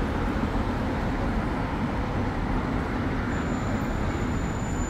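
Steady traffic noise of a busy city street, with cars passing on the road.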